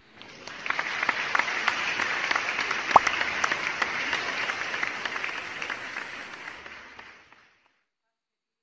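Audience applause, a dense patter of many hands clapping, fading in over the first second and fading out about seven seconds in.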